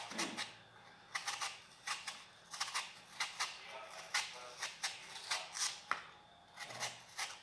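Kitchen knife peeling the skin off a green apple: a string of short, sharp cutting and scraping strokes, irregularly spaced and at times several a second, with brief pauses between runs.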